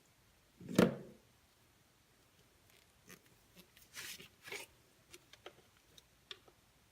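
Slime being squeezed and poked by hand: one loud pop a little under a second in, then scattered soft clicks and crackles.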